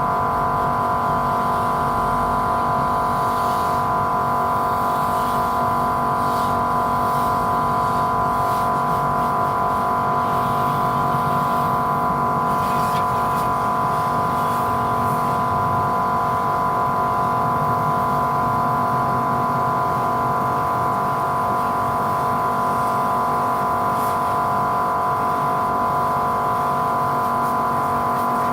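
A machine running with a steady, unchanging drone made up of several close steady tones.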